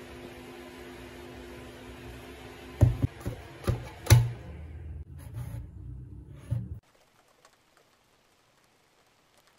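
A plastic bubble tea cup handled and set down on a desk: four sharp knocks between about three and four seconds in, over a steady hum. Near silence for the last few seconds.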